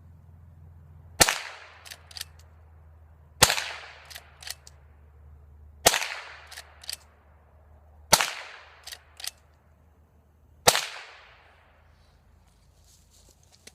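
Five shots from a Henry lever-action .22 LR rifle firing standard Remington .22 Long Rifle rounds, about two and a half seconds apart, each sharp crack trailing off in an echo. Two light clicks follow each shot as the lever is worked to chamber the next round.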